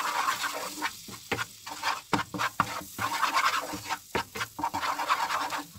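A spatula stirring and scraping flour into hot melted butter in a non-stick frying pan, in quick irregular strokes over a light sizzle: a roux being cooked for béchamel.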